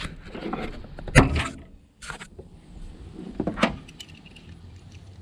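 Scattered metal clinks and knocks of hand tools, a socket wrench being handled and set on the coil-pack bolts, the loudest a sharp knock about a second in.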